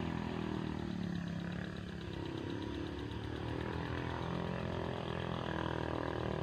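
Motorcycle engine running steadily at a low idle, a constant low drone.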